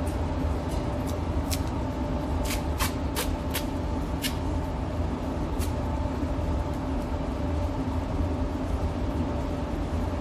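Steady machinery hum in a car body shop, with a low rumble under it. A handful of sharp clicks fall in the first half.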